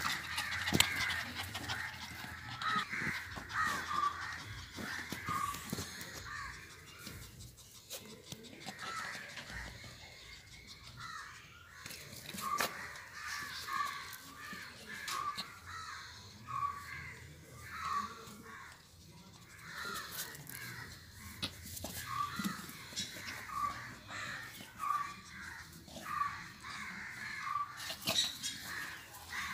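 A bird calling in runs of short, harsh notes, about one every three-quarters of a second, over scattered knocks and rustling.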